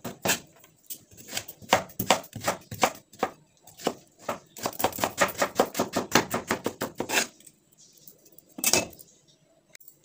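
Kitchen knife chopping carrot on a wooden cutting board: a fast run of knocks that quickens to about five or six a second, stopping about seven seconds in. One short, louder noise follows a little later.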